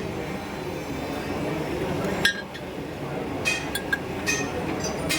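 Metal tools and parts clinking and ringing in a handful of short sharp strikes, a few of them close together near the end, over a steady machine hum.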